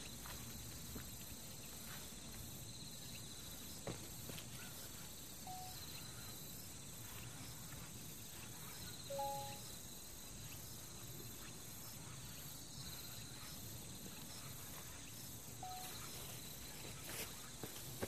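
Faint chirring of insects, coming and going. A few brief, soft single-pitch notes and a couple of light clicks are heard over it.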